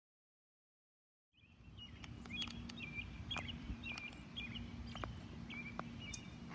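Dead silence for over a second, then outdoor ambience: a bird chirping over and over above a low rumble and a steady hum, with a few sharp clicks.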